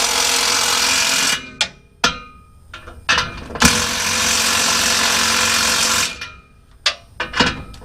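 Impact wrench (rattle gun) running in two bursts, one about a second and a half long and a longer one of about three seconds, tightening the nuts on the exhaust clamps. Short clicks between the bursts.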